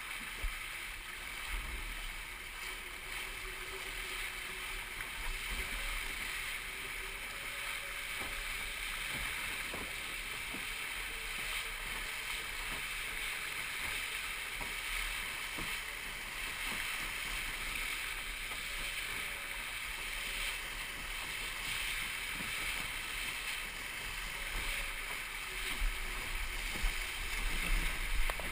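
Steady rush of water and wind along a Musto Skiff's hull as the dinghy sails. Near the end come louder irregular knocks and splashes as the boat heels hard over.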